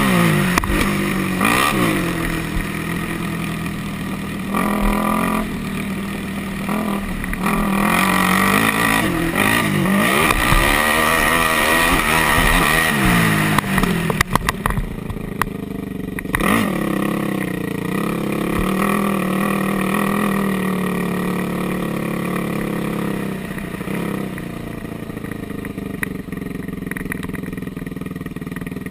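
Yamaha sport quad's single-cylinder four-stroke engine revving up and down through the gears at racing speed, with rattles and knocks from the chassis around the middle. In the second half it settles to a steadier, lower running as the quad slows to a crawl.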